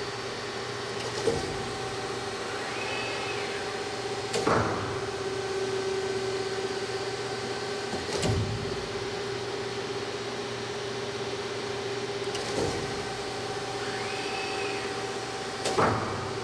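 CNC cutting machine running with a steady motor hum. A brief whine rises and falls twice, and a sharp clunk comes about every four seconds.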